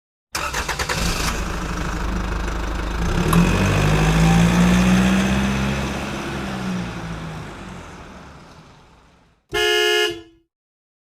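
A car starting: the starter cranks for about a second, then the engine catches and runs, revving up and then fading away. Near the end a car horn gives one short honk.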